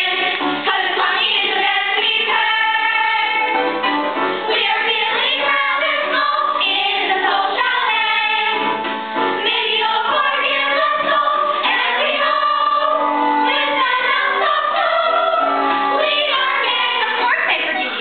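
Children's cast singing together as a choir in a stage-musical finale song.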